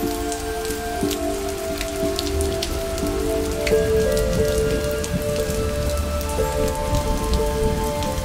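Steady rain patter layered with slow background music of long held notes that change every second or two.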